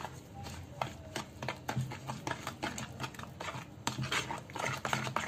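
Metal spoon stirring a thick semolina-and-yogurt batter in a plastic bowl, with irregular clicks and scrapes as the spoon knocks against the bowl.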